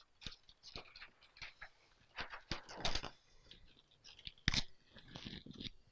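Large flip-chart paper sheets being turned over on the pad: a run of short crinkles and rustles, loudest about three seconds in and again about four and a half seconds in.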